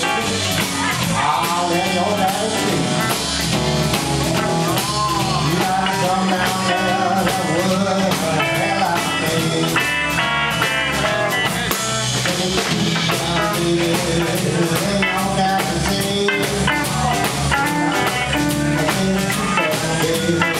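Live blues band playing: a Telecaster-style electric guitar plays bending blues lines over bass and a drum kit.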